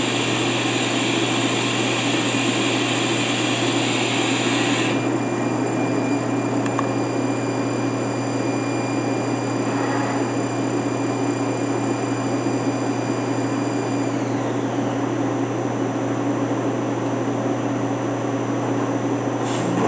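Haas VF-E vertical machining center running through a tool change, with a steady machine hum. A loud air hiss runs for the first five seconds or so and then cuts off. About 14 seconds in, a high whine falls in pitch and fades.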